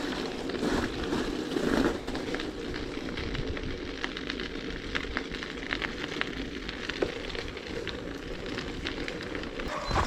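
Bicycle tyres crunching over crusted snow: a steady, dense crackling with many small crisp clicks.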